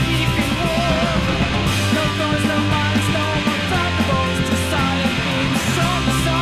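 Rock music with electric guitar, bass and drums, cymbals crashing at intervals over sustained bass notes.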